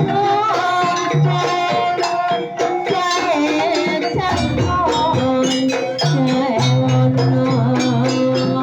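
Traditional East Javanese gandrung dance music: a sliding, wavering melody over a held low tone and steady struck percussion.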